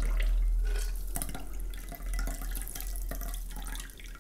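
A shaken cocktail trickling from a jar through a small hand-held sieve into a martini glass, poured from a height in a thin splashing stream. The stream falters briefly about halfway through, then runs on.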